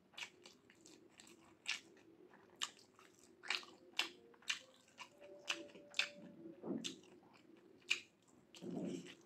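Close-up mouth sounds of a man chewing soft mutton curry, rice and potato: sharp wet smacks about twice a second, with a duller, lower sound near the end.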